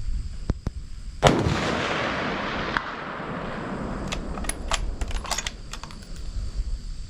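A single rifle shot about a second in, its report echoing and fading over about two seconds, with scattered sharp clicks before and after.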